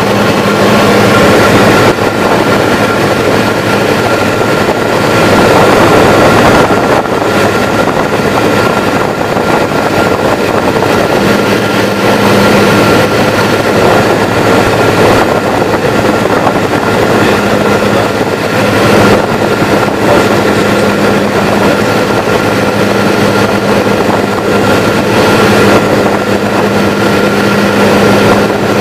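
Light aircraft's piston engine and propeller droning steadily in cruise, heard from inside the cabin over a constant rush of air noise.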